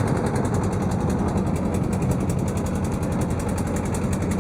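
Motorboat engine running steadily with a rapid, even chugging beat.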